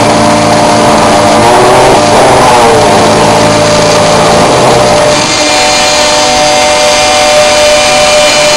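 CNC router spindle milling a flat aluminium bar with an end mill: a loud, steady whine mixed with cutting noise, its pitch wavering during the first few seconds. About five seconds in, the sound changes and settles into a steadier, higher ringing tone.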